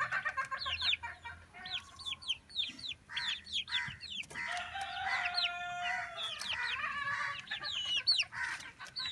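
A brood of Kadaknath (black) chicks peeping: many quick, falling, high-pitched chirps overlapping throughout. A lower, drawn-out call of about two seconds from an older chicken cuts in near the middle.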